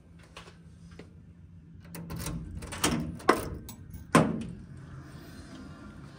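Key going into a room door's lock and turning, a string of metal clicks and rattles, then the lever handle and latch clacking, the two loudest clicks a little past three and four seconds in, as the door is pushed open. Faint sound from a television left on inside the room follows.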